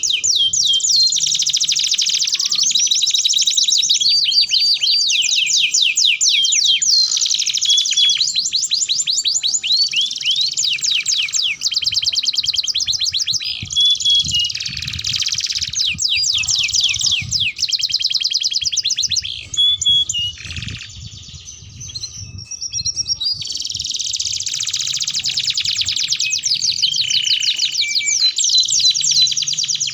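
Domestic canary singing a long song of rapid trills and fast repeated high notes, with a brief lull about two-thirds of the way through.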